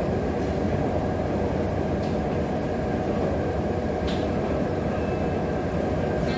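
Steady low background rumble of room noise, with a faint click about four seconds in.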